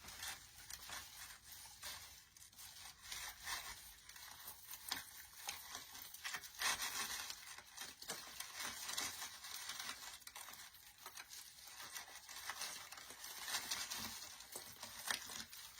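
Light, crinkly rustling and small clicks as the stems, leaves and ball picks of a pink pine teardrop swag are handled and pushed around, coming and going in short bursts.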